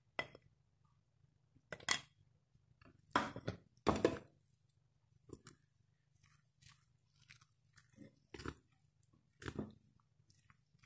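A spoon stirring chicken masala into thick egg-and-flour batter in a bowl: a string of irregular wet scraping strokes, some louder than others.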